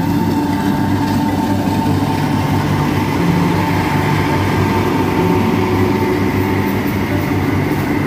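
Tracked rice combine harvester running close by while it harvests, its engine and threshing machinery making a loud, steady mechanical drone.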